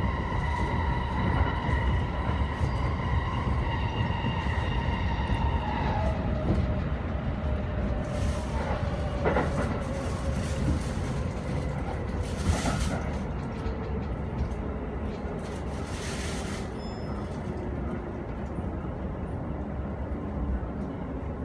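Inside an E233-series electric train braking into a station: the motor whine steps down in pitch and then falls slowly as the train slows, over a steady rumble of wheels on rail. A few short hisses come in about midway.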